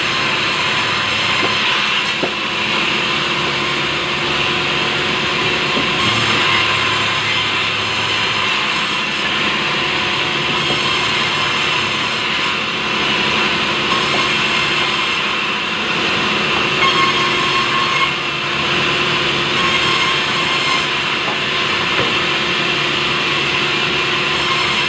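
Large band sawmill running and cutting lengthwise through a big log of soft timber: a loud, steady sawing noise of the blade in the wood, without a break.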